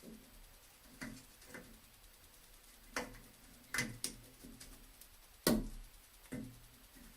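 Scattered light clicks and knocks from hands handling small plumbing parts and tools, roughly one every second, with a sharper knock about five and a half seconds in.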